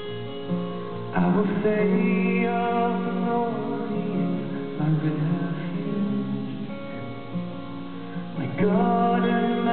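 Live acoustic band music: a strummed acoustic guitar together with a resonator guitar. Strong strums land about a second in and again near the end.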